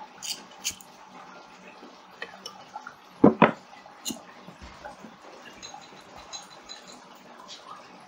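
Faint clicks and handling rustles as a cable and a small lighter are worked by hand, with two short, sharp knocks close together about three seconds in.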